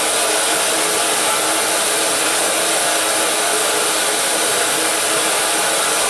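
Jackson commercial dishwasher running its final rinse: a steady rush of water spraying inside the closed machine, with a faint steady hum.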